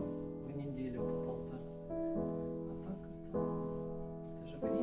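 Background piano music: slow sustained chords struck about once a second and left to ring.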